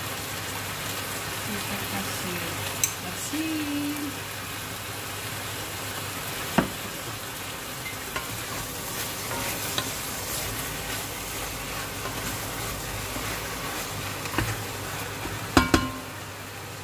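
Beef chunks and garlic sizzling as they brown in an enamelled cast-iron pot: a steady hiss. A wooden spatula stirs and knocks against the pot a few times, loudest in a quick pair near the end.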